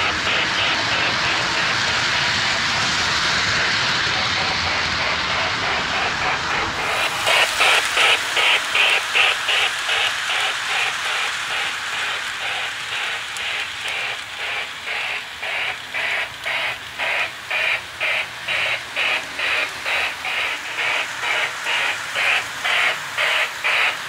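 Lionel O scale model train engine running on the track: a steady rushing mechanical noise, then from about seven seconds in a regular beat of about two strokes a second.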